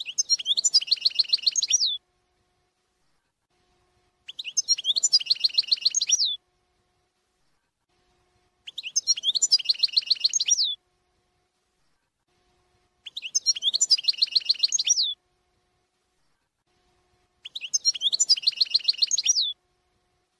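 European goldfinch song in the Shami (Levantine) style: one quick twittering phrase of about two seconds, ending in a rapid trill, repeated unchanged five times about every four and a half seconds, as in a looped recording.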